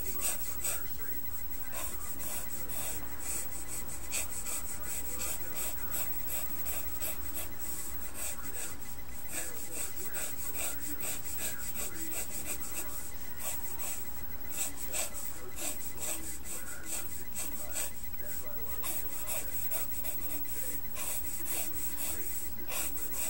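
Pencil scratching across paper in many quick, short strokes as lines of hair are sketched in.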